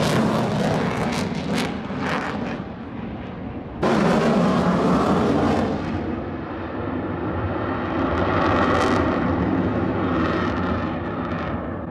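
Loud airplane engine noise from aircraft flying at an airshow, steady and dense, with an abrupt jump in level about four seconds in.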